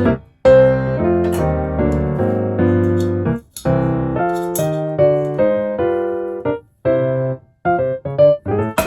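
Background piano music playing a melody over chords, with a few short breaks between phrases.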